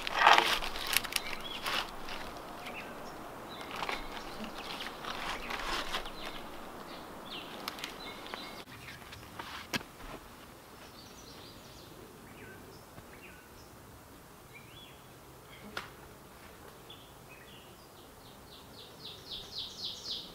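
Crackling and snapping of dry leaves and dead sticks in the woods, busiest in the first several seconds, with a couple of lone sharp snaps later. Birds chirp here and there in the quieter second half, and a short, rapid high trill comes near the end.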